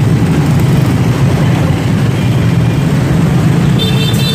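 Steady, loud street traffic noise, mostly passing motorbikes.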